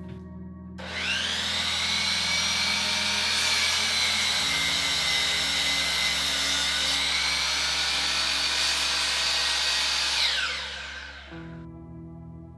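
Electric DeWalt miter saw. Its motor spins up with a rising whine and runs for about nine seconds, dipping slightly as the blade cuts through a length of lumber, then winds down with a falling whine.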